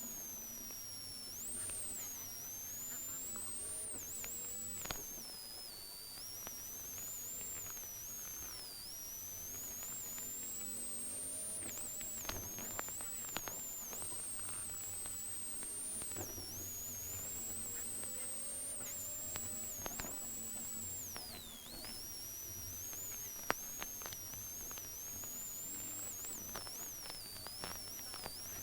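Rally car engine heard through a faulty GoPro audio track: over a steady hiss, a thin high-pitched whine climbs and falls back sharply again and again with the revs, with faint rising engine tones underneath and scattered clicks.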